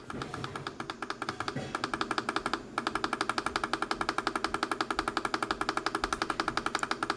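A weather radio's key beep repeating rapidly and evenly as its button is held, stepping through the alert-event menu. After a brief break about two and a half seconds in, the beeps come louder and steadier.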